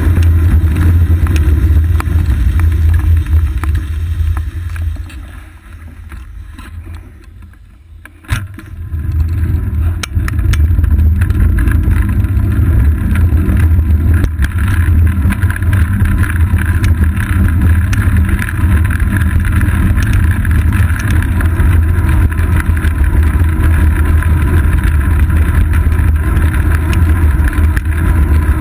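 Heavy wind rumble and road vibration picked up by a bicycle seat-post-mounted GoPro Hero 2 while riding. It falls away for about three seconds a few seconds in, then comes back after a sharp click.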